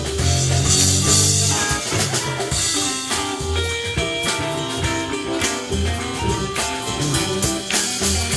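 Live band playing a soul/rock number, with drum kit, electric guitar, bass and keyboards.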